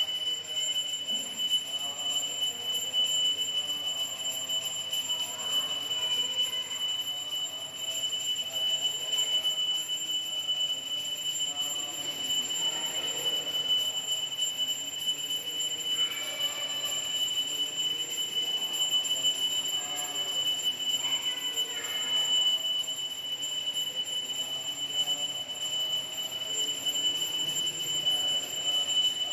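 A steady high-pitched tone that holds one pitch without a break, over faint indistinct voices in the room.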